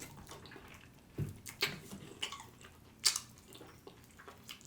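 Close-miked eating sounds of barbecue beef rib meat being chewed: a handful of short, wet mouth smacks and clicks spaced about a second apart.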